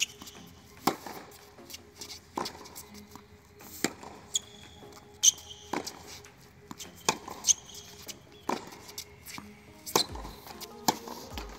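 Tennis balls struck by racquets in a forehand volley drill: a sharp pop off the strings roughly every one to one and a half seconds. Faint music plays underneath.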